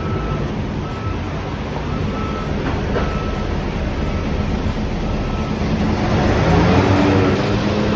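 Steady low rumble of a moving vehicle, with a faint high tone coming and going in the first few seconds and the noise swelling slightly near the end.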